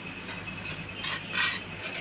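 Perforated metal spoon scraping across a metal kadai while stirring a thin curry masala, a few short scrapes with the loudest about halfway through, over a steady background hum.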